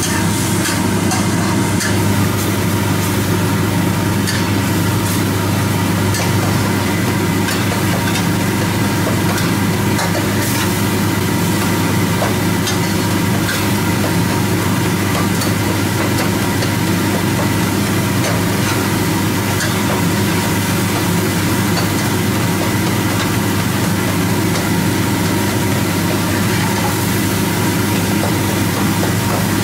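A steady low hum runs throughout and is the loudest sound, under the faint sizzle of chicken masala sauce simmering in a wok and a metal ladle stirring and scraping through it.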